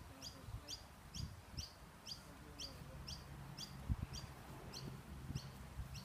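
A bird repeating one short, high, falling chirp about twice a second at a very even pace. Low rumbling and soft thumps sit underneath.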